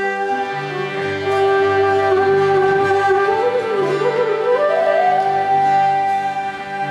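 Instrumental introduction to a Nepali folk song: a side-blown bamboo flute (bansuri) plays a long held note, then runs up about an octave to a new held note about four seconds in, over sustained harmonium chords.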